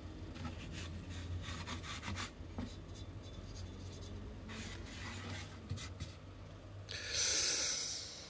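Light rubbing and scraping on wood: a run of short scratches, a few more scattered ones, then a longer, louder hiss of rubbing about seven seconds in.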